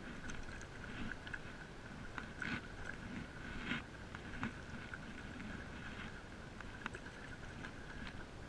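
Stand-up paddle strokes in calm water: the blade dipping and pulling through with small irregular splashes and drips, a couple of them louder about two and a half and three and a half seconds in. A faint steady tone underneath.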